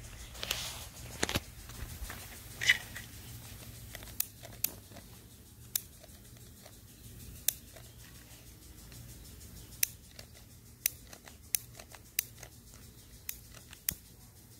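Smoke bombs sputtering out, with a few fading hisses in the first seconds. Then come scattered single sharp clicks and crackles, about one every second or so.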